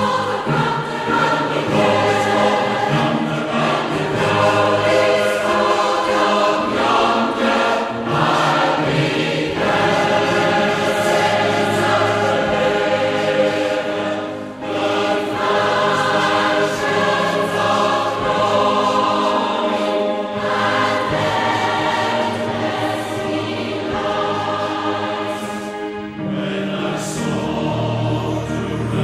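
Choir singing a hymn, in sustained, full-voiced phrases, with a brief break between phrases about halfway through.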